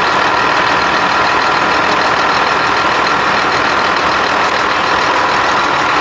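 John Deere tractor's diesel engine idling, a loud, steady running sound.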